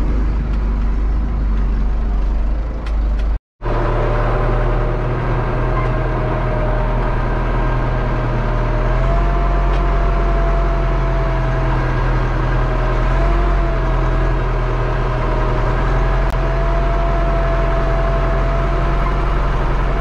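Tractor engine running steadily under load while ploughing. There is a brief dropout about three and a half seconds in, and after it a steady whine rides over the engine note.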